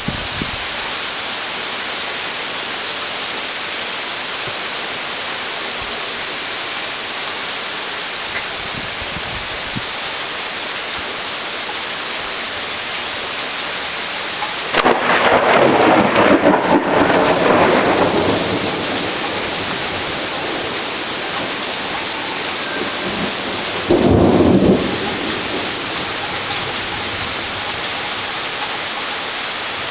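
Thunderstorm: steady rain, with a loud clap of thunder about halfway through that rumbles on for about three seconds and a shorter burst of thunder a few seconds before the end.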